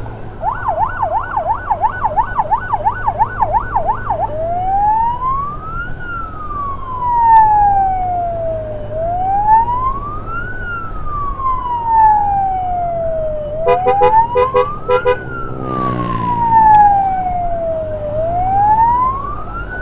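Electronic emergency siren on an ambulance escort, on a fast yelp for the first few seconds, then switching to a slow rising-and-falling wail that repeats about every four and a half seconds. A quick series of short electronic beeps comes about two-thirds of the way in, over a steady low engine hum.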